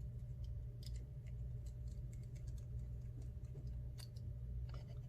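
Light, irregular small clicks and ticks from tools and small iPhone parts being handled during a screen repair, over a steady low hum.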